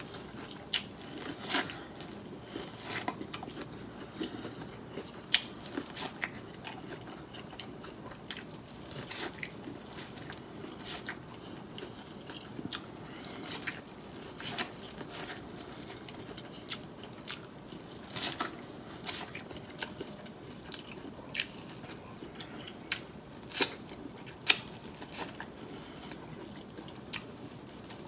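Corn on the cob being bitten and chewed, the kernels giving irregular crisp crunches and pops as they are stripped off the cob.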